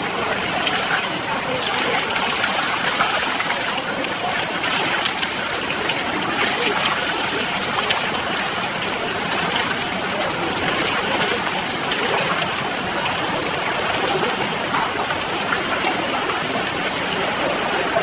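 Steady rushing, trickling noise of running water, with small splashes and ticks scattered through it.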